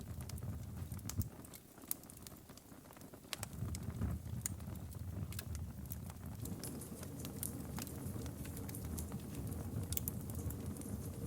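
Campfire burning, with irregular sharp crackles and pops over a low, steady rush of flames; the rush drops back briefly about two seconds in.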